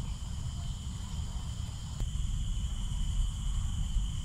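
A steady chorus of insects, two unbroken high-pitched trills, over a low, steady rumble.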